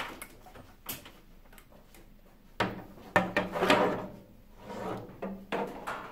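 Scattered clicks, knocks and scraping of hard objects being handled and set down, the busiest and loudest stretch about three to four seconds in.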